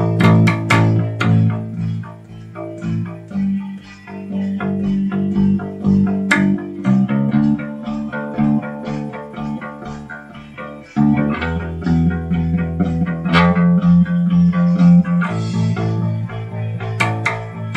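Electric bass guitar playing a song's bass part, a run of plucked notes moving through a repeating line, with other music sounding along with it.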